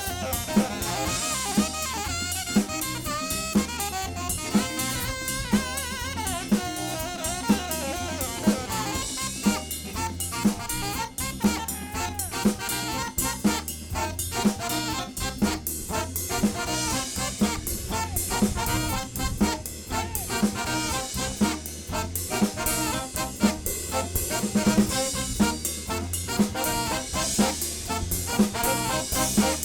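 Live soul band playing an instrumental passage: a saxophone lead line over a drum kit keeping a steady beat, with the lead thinning out after about nine seconds.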